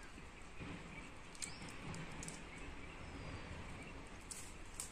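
Faint outdoor ambience with a few short, high bird chirps scattered through it and light rustling.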